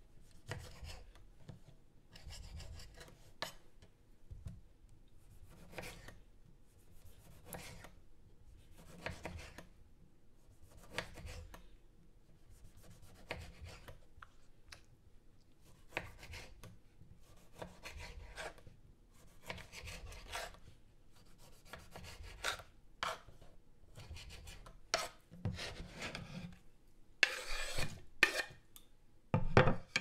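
A kitchen knife cutting tomatoes on a wooden cutting board: irregular slicing strokes, each with a short knock of the blade on the wood and a little scraping between. Near the end the knocks get louder and there is a longer scrape.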